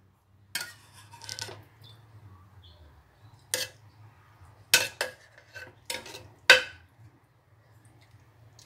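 Metal ladle knocking against the inside of a ceramic soup pot while scooping broth, giving a run of sharp, irregular clinks, the loudest about six and a half seconds in.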